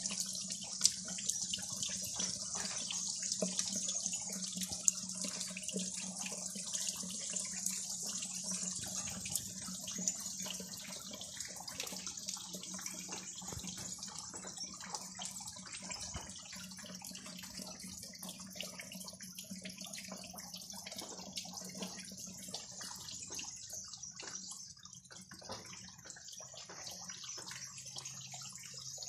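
Steady rain falling and splashing on wet paving: a dense hiss of many small drops with a few sharper taps, over a low steady hum.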